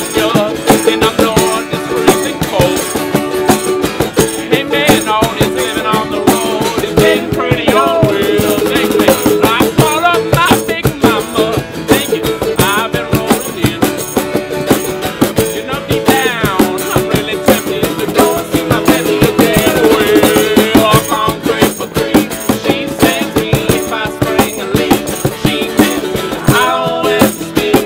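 Acoustic band playing on guitar, mandolin and cajon, with a fast, steady rattling percussion rhythm over the strings.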